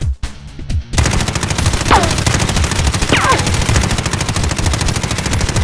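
Music with a beat for about a second, then rapid automatic gunfire that runs on, a dense even stream of shots with heavy bass, with two brief falling tones over it.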